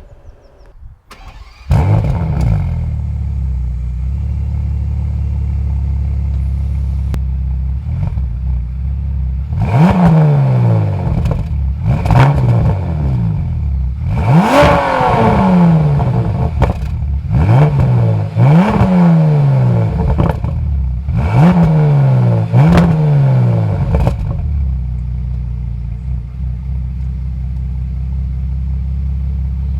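A Bentley Continental GT's W12 engine starts about two seconds in and idles. It is then blipped in a series of about seven sharp revs, each rising and falling back, the highest about halfway through. After the revs it returns to a steady idle.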